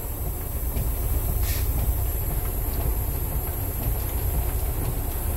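Tractor-trailer's diesel engine idling, a steady low rumble heard from inside the cab, with the hiss of heavy rain on the truck; a faint click about a second and a half in.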